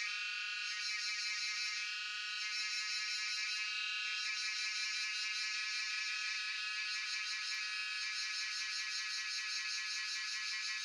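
Cicadas singing in a continuous chorus: a steady, high-pitched, rapidly pulsing buzz with no low sounds beneath it.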